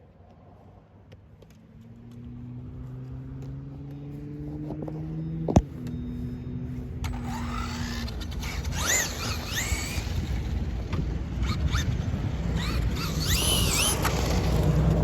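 Electric motor of a fast RC car whining, its pitch slowly rising as it builds up from about two seconds in, with one sharp click a little after five seconds. From about seven seconds on, high whines swoop up and down in pitch as it revs, growing louder.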